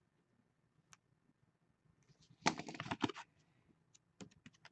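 Trading cards and a hard plastic card holder being handled at a table: a short rustling scrape about two and a half seconds in, then a quick run of small plastic clicks near the end.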